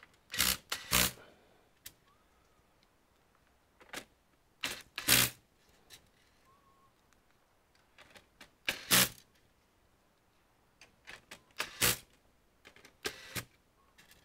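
Clicks and clatter of small computer parts and tools being handled during disassembly of an all-in-one PC, in short bursts every few seconds with quiet between them.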